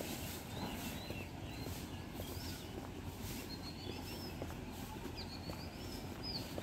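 Small birds chirping, with many short, wavering high calls scattered through, more of them in the second half, over a steady low rumble.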